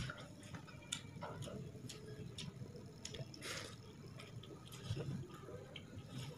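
Eating sounds from hand-eating rice: soft wet chewing and lip smacks with scattered small clicks as fingers scoop rice in a pan, and a sharp tap right at the start.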